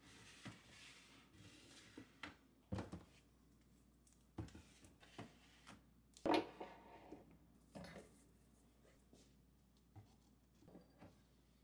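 Metal cans and bottles being set down and shifted on a cupboard shelf: scattered knocks and light clinks at irregular intervals, the loudest about six seconds in.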